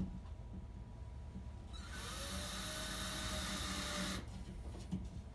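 Electric drill working in sheetrock: it starts about two seconds in, its pitch rising as it spins up, runs steadily for about two seconds, then stops abruptly.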